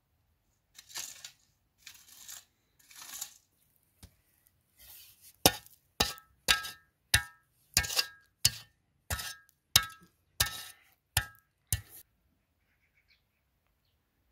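Metal shovel digging in dry, stony earth: three scrapes, then about eleven quick strikes of the blade into the ground, each with a short metallic ring, roughly two a second.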